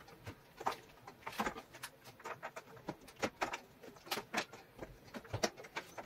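Light, irregular clicks and taps of shoe-rack panels and their plastic connectors being handled and fitted together, a few a second.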